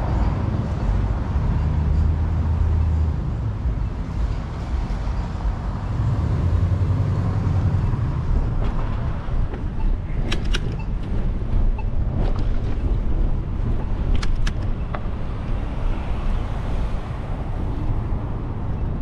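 Steady wind rumble on the microphone and tyre noise while riding a bicycle, swelling in a couple of stretches, with a few sharp clicks around the middle.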